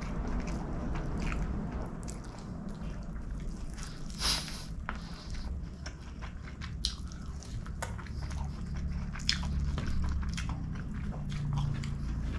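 Close-miked eating by hand: chewing with wet mouth clicks and smacks, and fingers squishing rice and curry as they gather a handful.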